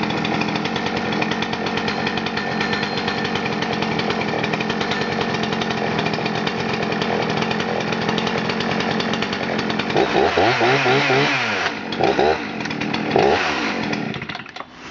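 Husqvarna 266 XP's 66.7 cc two-stroke chainsaw engine running steadily, then about ten seconds in the throttle is blipped several times, the pitch rising and falling, before the engine stops near the end.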